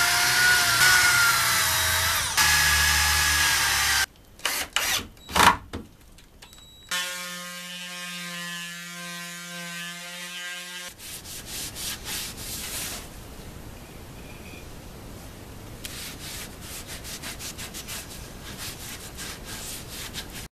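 Workshop power tools in a run of short cuts. A loud power tool runs for about four seconds, then come a few sharp knocks. About seven seconds in, an electric palm sander starts a steady hum and sands the pine bench slats, with scratchy strokes later on.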